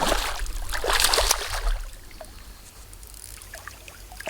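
Water splashing and trickling for about the first two seconds, then dropping to a faint background.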